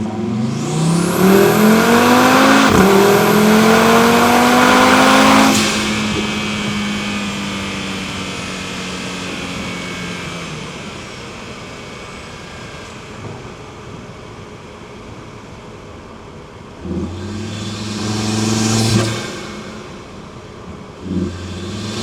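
Audi TT RS turbocharged five-cylinder under hard acceleration for about five seconds, its note climbing in pitch through one upshift with a high turbo whistle over it, then cut off sharply as the throttle is lifted and tapering away while it coasts. Near the end come two shorter blips of throttle.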